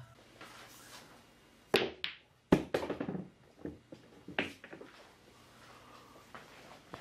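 Billiard balls clacking together and knocking on the pool table, a few sharp knocks about two seconds in, the loudest at about two and a half seconds, then fainter knocks over the next two seconds.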